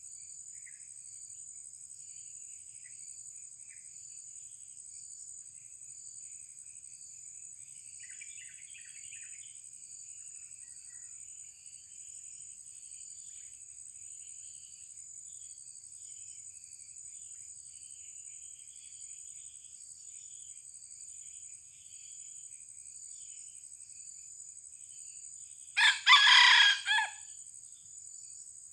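A young red junglefowl rooster, kept as a decoy bird, crows once near the end, short and loud, over a steady high insect drone.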